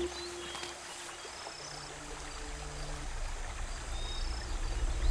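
Forest ambience with scattered short bird chirps over a faint hiss, and a low drone that swells louder toward the end.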